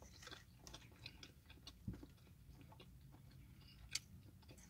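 Near silence: faint, scattered mouth clicks of someone quietly chewing a piece of fried chicken, with a sharper click about four seconds in.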